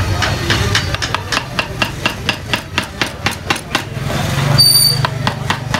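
Wooden mallet striking the handle of a woodcarving gouge, driving it into the wood in quick, even taps of about four a second. A low hum swells in the background about four and a half seconds in.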